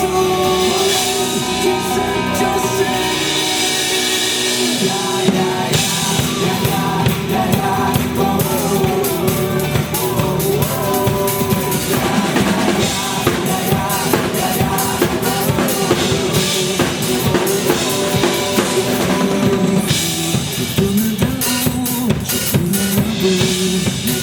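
Acoustic drum kit played live in a rock groove: kick, snare and cymbals over a backing track of the full rock song with guitars.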